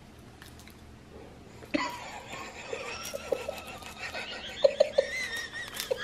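A small dog chewing a piece of roasted seaweed snack taken from a hand, with scattered smacking clicks from about two seconds in. A steady high-pitched tone sounds underneath from the same point.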